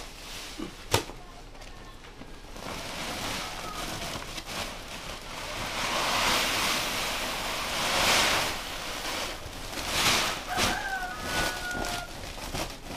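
Rice grain pouring from one sack into another: a rushing hiss that swells and fades a few times, with sacks rustling and a sharp knock about a second in.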